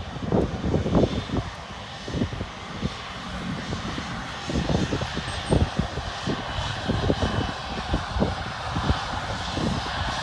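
Jet engines of an Air China Airbus A330 running at high power for takeoff: a steady roar with an irregular low rumble.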